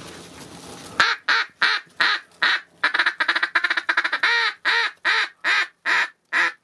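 Mallard duck call blown in a loud string of quacks to a flock of ducks overhead. The quacks start about a second in, with a fast run of short notes in the middle.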